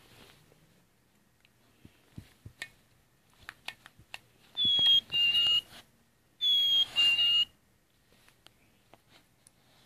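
Plush chickadee toy's sound box playing a recorded black-capped chickadee song twice, each a clear two-note whistle, the second note lower than the first, set off as the dog bites the toy. Before it, a few light clicks of the dog mouthing the toy.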